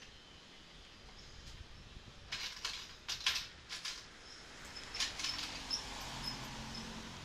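Handling noise at a shop counter: short bursts of rustling and clicking, loudest a few seconds in, with a faint high chirp repeating about twice a second near the end.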